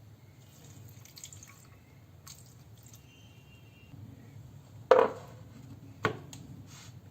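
Quiet kitchen handling sounds, then two sharp knocks about a second apart near the end, the first the loudest.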